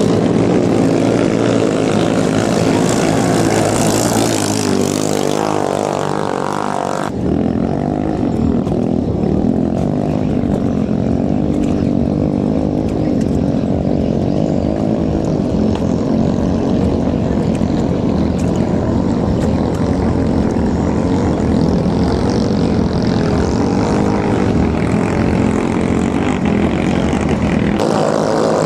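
Racing ketinting longtail boats' 6–7 horsepower engines running at full throttle together, a loud steady drone of several engine notes layered over each other. The sound changes abruptly about seven seconds in and again near the end.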